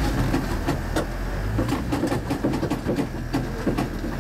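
Off-road 4x4's engine running low while it crawls over rock, heard from inside the cab, with a dense, irregular string of creaks, clicks and knocks as the vehicle works over the rocks.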